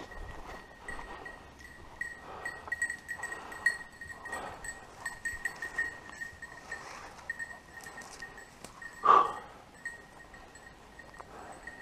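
Footsteps and rustling through dead bracken and heather, with the high, jingling tinkle of a setter's collar bell as the dog works the cover nearby. One louder short burst about nine seconds in.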